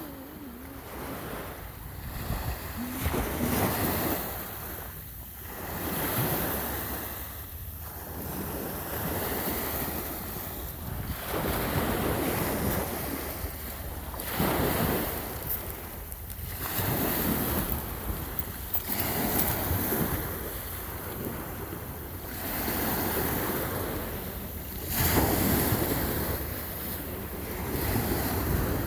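Ocean waves breaking and washing in, swelling and falling back every two to three seconds, with wind buffeting the microphone.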